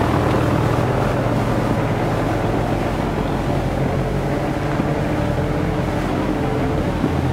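Off-road 4x4 engine running steadily at low revs.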